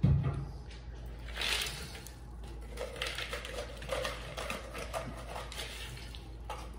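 A dull knock, then chopped vegetables sliding and pattering out of a plastic measuring cup into an enamelled pot, with a run of small irregular clicks as the pieces land.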